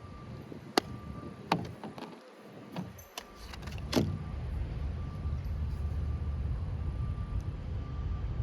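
Wind rumbling on the microphone outdoors. It builds about three and a half seconds in and stays steady, after a few sharp clicks in the first four seconds.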